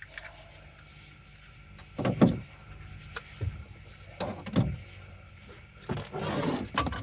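Three heavy thumps about two seconds apart, the last followed by about a second of noisy commotion.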